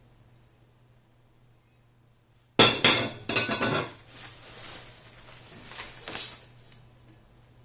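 Heavy powder-coated metal plates clanking together as they are handled, with a sudden loud clatter about two and a half seconds in, then a few lighter knocks.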